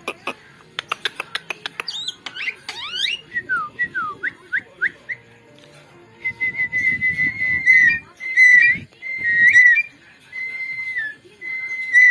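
Javan myna clicking rapidly, then giving a run of short swooping whistles, then about five long, level whistled notes: the bird's mimicry calls.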